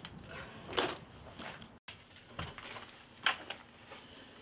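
A wooden gate and door being opened: a few short clicks and knocks with soft rustling between them.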